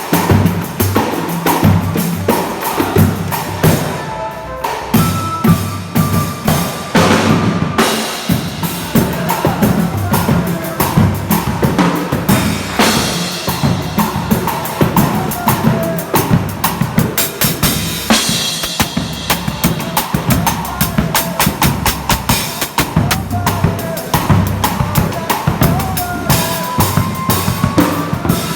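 Live band playing during a soundcheck, with the drum kit's bass drum and snare hits prominent over other instruments.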